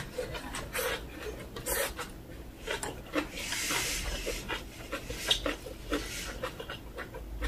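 Close-miked chewing of aged-kimchi rice wraps: wet mouth sounds and small clicks in an uneven rhythm, with a longer breathy hiss about three and a half seconds in.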